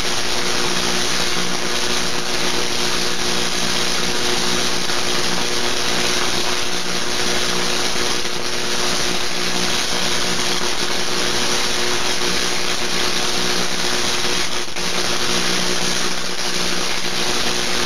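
Pickles electrocuted on household mains current through straightened coat-hanger wires, sizzling steadily with an electrical hum while they glow.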